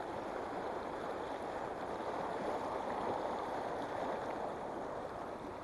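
Fast mountain stream rushing over rocks through a white-water riffle: a steady rush of water.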